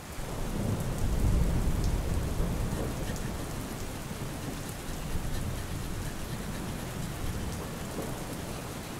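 Heavy rain falling steadily, a dense hiss with a deep rumbling undertone.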